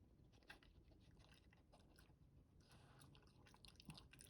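A dog chewing slowly on food with wormer medicine mixed in: faint, irregular crunching clicks.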